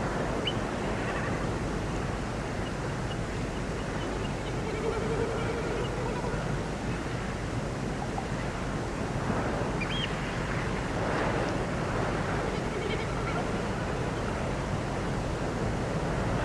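Spring morning outdoor ambience: a steady rushing noise like wind or distant surf, with faint scattered bird chirps and a distant animal call held for about a second and a half, around five seconds in.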